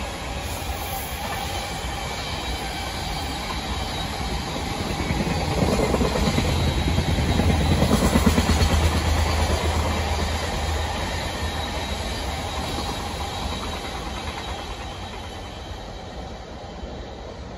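JR Freight container train's wagons rolling past on the rails. The sound grows louder about five seconds in, is loudest around the middle, then fades steadily as the end of the train goes by.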